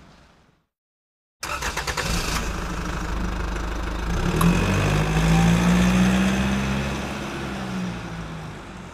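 A vehicle engine starting: about a second of rapid clicking, then the engine running with a steady hum that swells midway and fades out.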